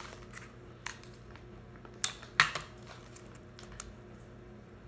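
Clear sticky tape pulled off its roll and torn off by hand, heard as a run of small clicks and crackles, the two loudest snaps coming a little after two seconds in.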